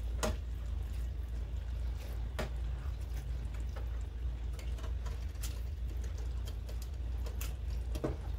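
Metal ladle stirring soupy chana dal and masala in a frying pan: wet sloshing, with a few light clinks of the ladle against the pan, over a steady low hum.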